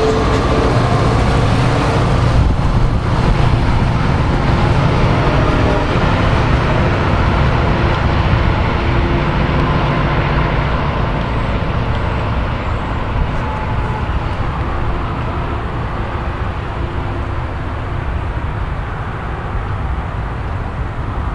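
NJ Transit diesel locomotive and multilevel passenger cars running on the rails: a steady, loud engine and wheel noise that slowly fades toward the end as the train pulls away.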